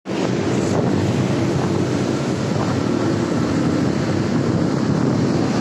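Steady rush of wind buffeting the microphone, mixed with the running noise of a motorcycle on the move.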